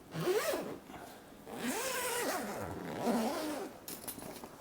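Zipper on the plastic cover of a zip-up grow tower being unzipped in three pulls, its rasp rising and falling in pitch with the speed of the pull.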